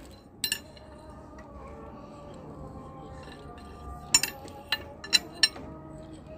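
Sharp metallic clinks of a wrench on the crankshaft pulley of a JCB 444 diesel engine as it is turned over by hand to bring number one cylinder up for fuel-pump timing: one clink about half a second in, then a cluster of four or five about four to five and a half seconds in.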